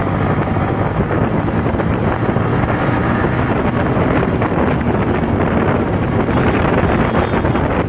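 Wind rushing over the microphone of a Yamaha sport bike ridden at speed on the open road, with the bike's running noise underneath.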